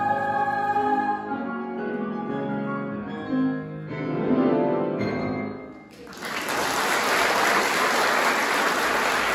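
A choir's final held chord ends about a second in, and a few closing piano notes follow. About six seconds in, audience applause breaks out and continues.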